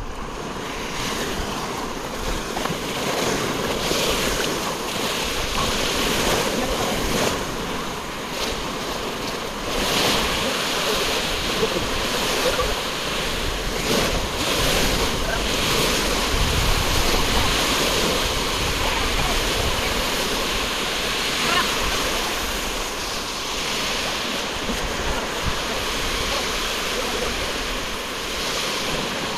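Sea surf breaking and washing onto a beach, swelling and fading as each wave comes in, with wind buffeting the microphone.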